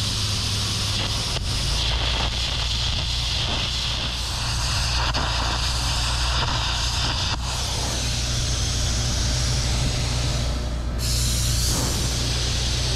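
Air carbon arc gouging: the steady hiss of the compressed-air jet and the crackle of the carbon arc as it blows molten weld out of a steel trailer hitch, over a constant low engine hum. The gouging stops near the end.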